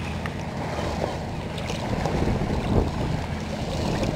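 Wind on the microphone over open water, with a low steady hum underneath and a few small knocks.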